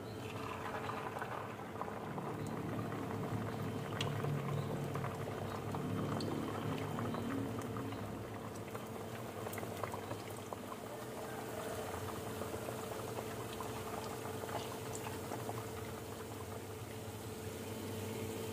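Pempek fish cakes deep-frying in hot oil in a pan: a steady bubbling sizzle with scattered small pops and crackles, over a faint steady hum.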